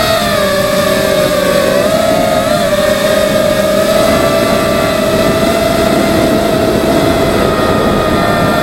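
FPV racing quadcopter's electric motors and propellers whining steadily, heard up close from a camera mounted on the drone; the pitch wavers a little with the throttle and dips slightly near the end.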